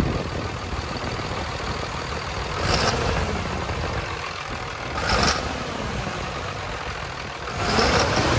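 Compound-turbocharged 5.9 L Cummins common-rail turbodiesel idling just after start-up, with three short throttle blips about 3, 5 and 8 seconds in.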